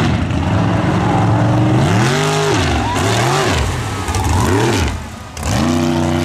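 Racing mud truck engine at full throttle, its pitch climbing and dropping several times as it revs through the run. Around five seconds in the sound dips briefly, then the revs climb sharply again.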